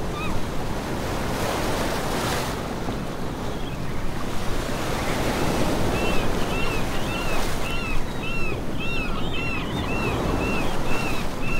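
Wind buffeting the microphone, a steady low rumbling rush, over the wash of sea water. From about halfway through, a short high chirp repeats roughly twice a second.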